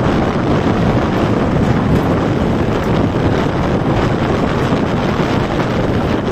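Wind buffeting the microphone: a loud, steady rushing noise, heaviest in the low range, with no distinct events.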